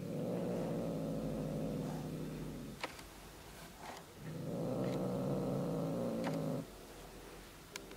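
A domestic cat gives two long, low growls, each about two and a half seconds, with a pause of over a second between them.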